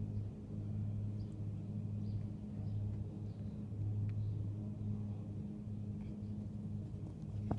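A steady low hum from a distant engine or machine, with faint short high bird chirps now and then.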